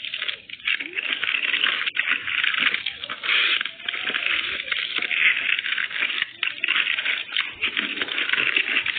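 Close-up chewing and crunching of food, a dense run of crackly, wet mouth sounds.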